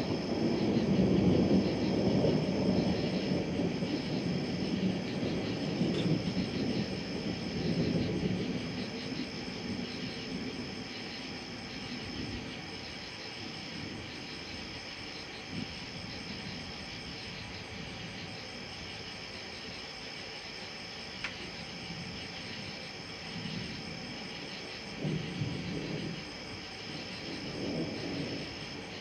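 Thunder rumbling low and fading away over the first several seconds, with a shorter, softer rumble swelling near the end. Night insects trill steadily throughout on a high, slightly pulsing note.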